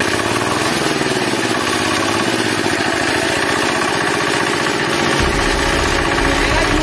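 Homemade power tiller's small single-cylinder engine running steadily, with a deeper low rumble coming in about five seconds in.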